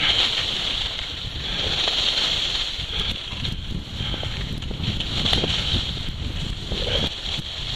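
Skis hissing and scraping on groomed snow in a run of turns, the hiss swelling and fading every second or two, with wind buffeting the microphone underneath.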